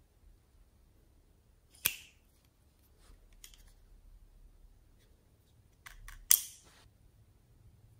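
Small plastic cosmetic bottles and their caps clicking as they are capped and handled: one sharp click about two seconds in, a few faint ticks, then a quick run of clicks ending in the loudest snap a little after six seconds.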